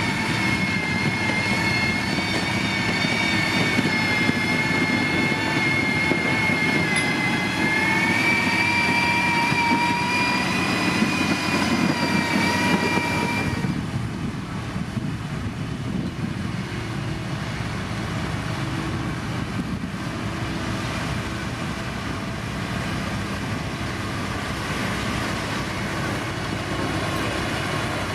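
Heavy road-construction machine's diesel engine running, with a high whine over it that rises a little about eight seconds in. About halfway through the whine cuts off suddenly, leaving a steadier, slightly quieter engine sound.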